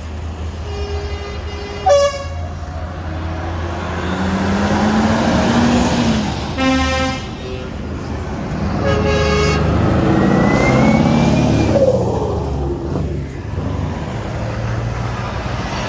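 Heavy lorries driving past with diesel engines rumbling, swelling twice as they pass, while their horns sound several short blasts, the longest two in the middle.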